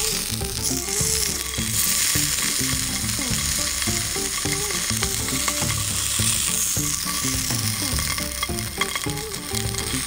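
Bacon-wrapped camembert frying in oil in a cast-iron skillet, a steady sizzle, with quiet background music.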